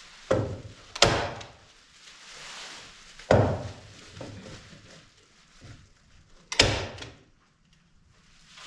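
A staple gun firing staples through plastic sheeting into wooden window framing: four sharp snaps spread over several seconds, with the plastic crinkling in between.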